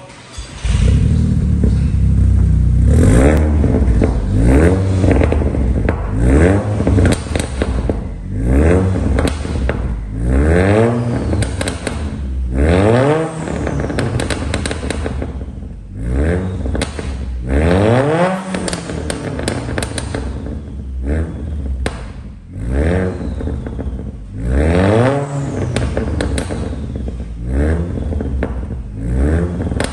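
Volkswagen Jetta's turbocharged 2.0-litre four-cylinder revved repeatedly through its aftermarket exhaust, about one rev every two seconds. The pitch rises and falls each time, with crackles and pops as the revs drop.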